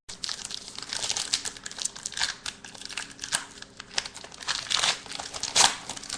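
Trading card pack wrapper crinkling and tearing as it is handled and opened: dense irregular crackling, loudest about five and a half seconds in.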